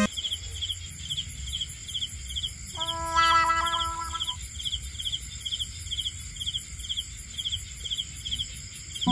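Crickets chirping steadily in a regular rhythm, about two chirps a second. About three seconds in, a louder, wavering pitched tone sounds for about a second and a half.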